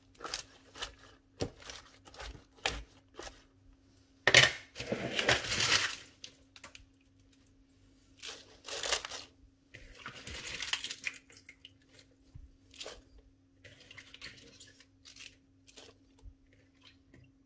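Raw cabbage leaves crunching and rustling as they are pushed into a cooker pot by hand and turned with a wooden spoon, with scattered light knocks of the spoon against the pot. The loudest stretch of rustling comes about four seconds in. A faint steady hum runs underneath.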